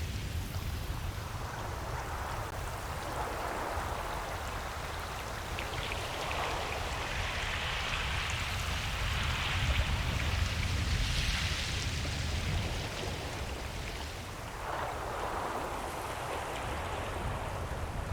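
Ocean surf washing onto a beach: a steady hiss of water with waves swelling and falling away every few seconds, over a low rumble.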